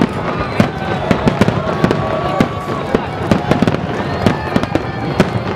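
Fireworks finale: aerial shells bursting in a rapid, irregular string of bangs and crackles, several every second.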